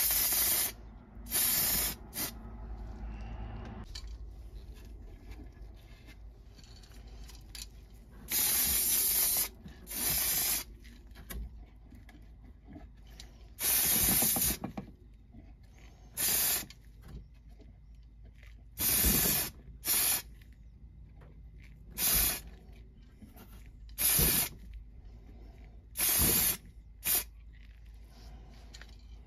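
Aerosol can of black spray paint hissing in short, separate bursts, about a dozen in all. Some bursts last about a second and others are brief puffs, with pauses of a few seconds between them.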